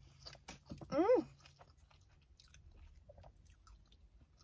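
A person chewing a mouthful of toasted sub sandwich, with faint crunches scattered throughout. About a second in comes a brief voiced "mm" that slides up and then down in pitch.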